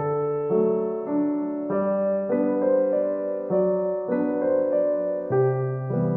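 Background music: a gentle solo piano piece playing slow, sustained chords that change about every half second.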